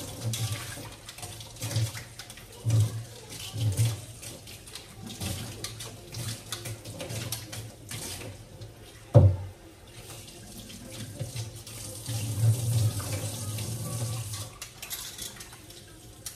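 Kitchen faucet running into a sink, water splashing as a bowl of steak strips is filled with cool water and handled. Dull low thuds come and go, and there is one sharp knock about nine seconds in.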